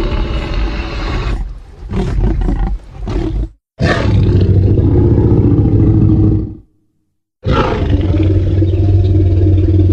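Custom monster roars made from layered dinosaur and animal sound effects: a roar trailing off into a few shorter broken calls, then two long, deep roars of about three seconds each, separated by short silences.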